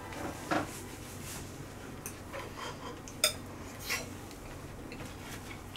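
Spoons clinking and scraping against ceramic bowls as several people eat fried rice: a few short, scattered clinks, the sharpest a little past the middle.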